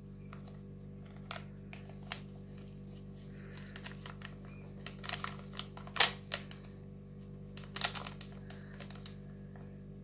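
A baking powder sachet crinkling as it is handled and torn open, in a few scattered rustles, the loudest about six seconds in and again near eight seconds, over a faint steady hum.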